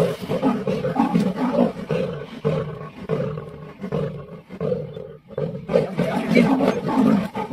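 Big cats snarling and growling in repeated harsh rasps, about two a second, in a face-off between a lioness climbing a tree and a leopard in its branches.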